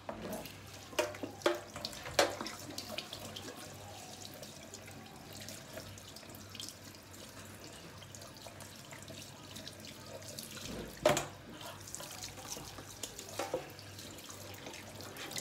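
Kitchen tap running into a stainless-steel sink while a skinned raw rabbit is rinsed and rubbed under the stream. A few sharp knocks break in as the meat is handled, the loudest about two seconds in and again about eleven seconds in.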